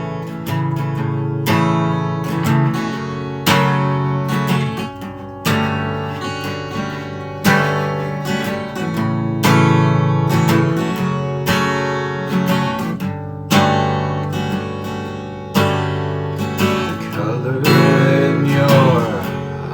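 Acoustic guitar music: chords strummed about once every two seconds, each left to ring out and fade before the next.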